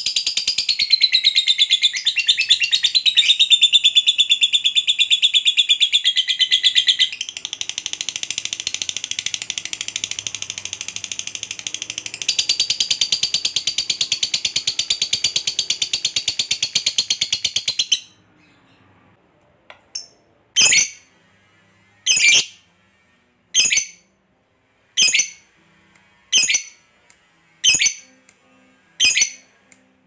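Lovebird chattering (ngekek): a long, very rapid, high-pitched trill that runs unbroken for about eighteen seconds, dipping in loudness partway through. It then stops and gives way to single short shrill calls about every second and a half.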